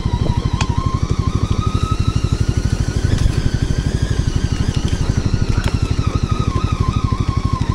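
Segway Snarler AT6L 570 cc ATV engine running steadily at low speed, its firing pulses an even, fast beat. Background music plays over it.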